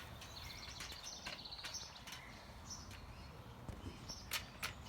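Small songbirds chirping and trilling, most busily in the first two seconds, then a few sharp clicks near the end from the feeder's wire cage being handled.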